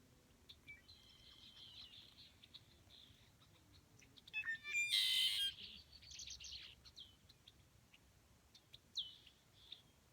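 Songbirds chirping and whistling in short scattered calls, with one much louder, harsher call about four and a half to five and a half seconds in.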